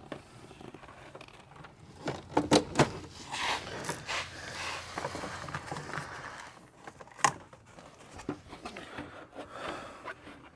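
Shop work noise: scattered sharp clicks and knocks, a quick cluster of them about two seconds in and another sharp knock past the middle, with scraping and rustling between them.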